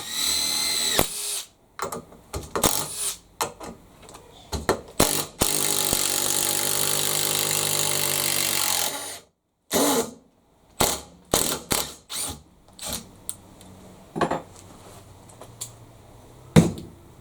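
Makita DTD145 cordless impact driver on its top setting, driving a long landscape screw into kwila hardwood. A short run rises in pitch at the start, then one long run of about three and a half seconds follows, with scattered knocks and clicks between the runs.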